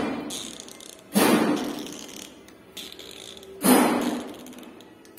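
Background music led by loud struck metal percussion: two hits about two and a half seconds apart, each ringing out and fading over about a second.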